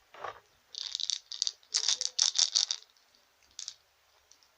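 Small pieces rattling inside a plastic surprise-egg capsule as it is shaken: a run of quick, bright rattles, then one more about a second later.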